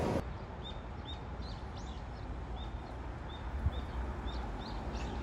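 Small birds chirping with short, high calls, a couple a second, over a low steady outdoor rumble.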